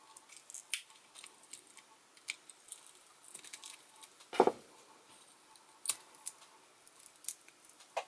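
Flathead screwdriver prying at the clear plastic light guide of a Philips dimmable LED bulb: scattered small clicks and scrapes of metal on plastic, with one louder snap about four and a half seconds in.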